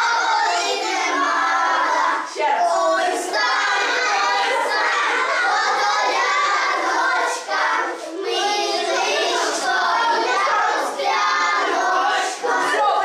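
Many children's voices at once, loud and overlapping: a group of children shouting and chattering together, with brief dips about two, seven and a half and eight seconds in.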